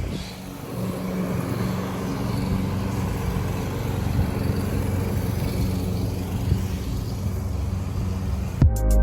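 Lawn mower engine running steadily, a constant hum, with music starting abruptly near the end.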